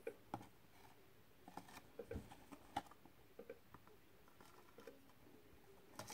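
Faint handling noise of a cardboard product box being turned over in the hand and set down: scattered light taps, clicks and rubs, most of them between about one and a half and three seconds in, with another near the end.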